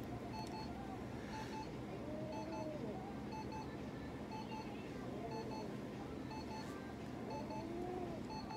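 Medical light-therapy unit beeping, a quick double beep about once a second while its red-light probe is held on the cat's wound. A few faint rising-and-falling meows from the cat come in between.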